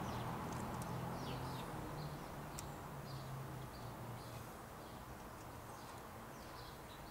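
A passing vehicle's engine hum fades away over the first few seconds, while small birds chirp in short, repeated calls.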